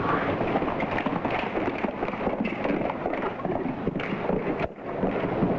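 Horses galloping, a dense patter of hoofbeats, with a brief drop about three-quarters of the way through.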